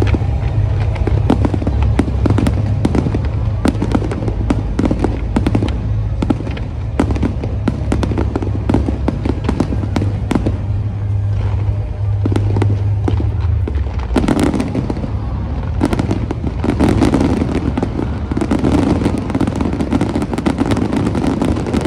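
Aerial fireworks display going off in quick succession: a continuous barrage of bangs and crackles, growing denser and louder about two thirds of the way in. A steady low hum runs under the first half.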